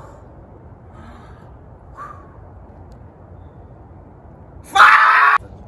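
A person's short, loud wordless yell about five seconds in, lasting under a second and cutting off sharply, over a low steady outdoor hiss.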